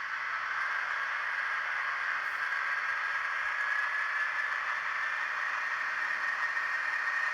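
The DCC sound decoder of an N gauge Fleischmann ER20 'Hercules' diesel locomotive model playing diesel-electric engine sound through its tiny speaker, a steady thin hiss-like drone with a faint tone slowly rising in pitch as the model moves off.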